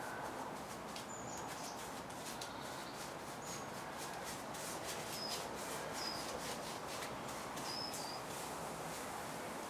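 Small birds chirping: short, high chirps every second or two over a steady outdoor hiss, with many faint clicks.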